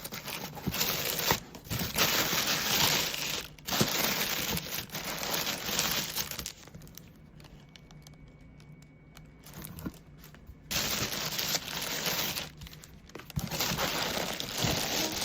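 Crinkling and rustling, like packaging being handled and opened, in bursts of a second or two with a quieter stretch in the middle.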